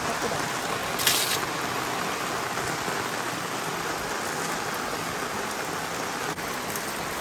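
Rain falling steadily, an even hiss with no pauses, with one short sharper hiss about a second in.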